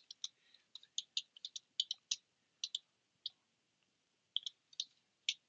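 Keystrokes on a computer keyboard, fairly faint, as a name is typed: quick irregular runs of sharp clicks, with a pause of about a second midway before a last burst of keys.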